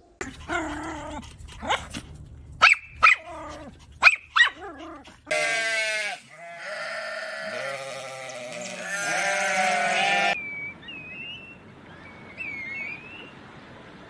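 First an animal that cannot be identified gives several short, loud cries. Then, from about five seconds in, sheep bleat with a wavering pitch for about five seconds. In the last few seconds, black-bellied plovers give short whistled calls that rise and fall.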